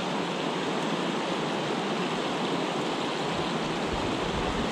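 Small mountain river running shallow and fast over rocks: a steady rushing of water through riffles.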